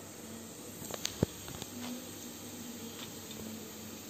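Steady hiss of steam in a steel idli steamer as wet banana-leaf parcels are turned over, with a few light clicks and one sharp tap about a second in.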